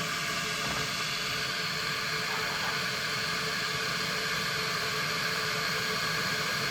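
Ulalov gooseneck electric kettle heating water toward its 175° setting, giving a steady rushing noise.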